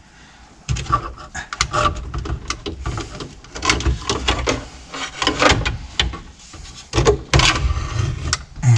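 Old hard-plastic dash trim flexing under strain as it is pushed and worked into place over a car stereo: irregular clicks, knocks and scraping.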